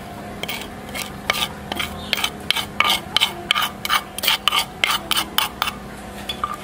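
Metal spoon stirring and scraping dry toasted grains in a pan: a quick run of short scrapes, about four a second, coming thickest after about two seconds.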